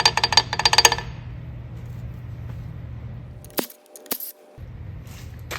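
Loose metal bolts clinking and rattling together with a metallic ring for about the first second, then a few single clicks. Under it is a steady low hum that drops out briefly in the middle.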